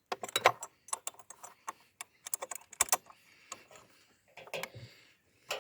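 Irregular metallic clicking and clinking of a tool working a spark plug loose from a portable inverter generator's engine, busiest in the first three seconds and then sparser.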